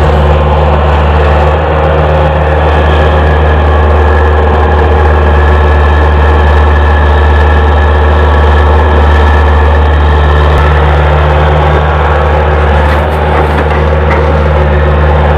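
Diesel engines of a tractor and a Tata Hitachi excavator running steadily while the excavator loads soil into the tractor's trolley: a loud, even low drone.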